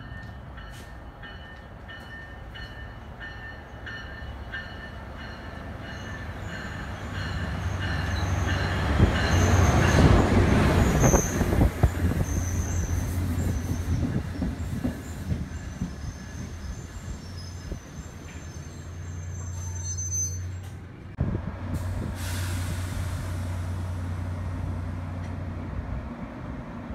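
NJ Transit commuter train with bi-level coaches running into the station and braking. It grows loud as it passes, with high wheel and brake squeal. It then stands with a steady low drone, and a hiss of air starts about three quarters of the way through.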